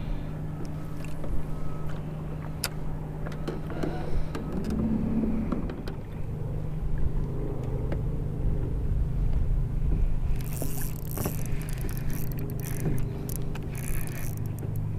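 Boat motor running with a steady low hum over a low rumble, a few sharp clicks, and a burst of hiss and clatter about ten seconds in.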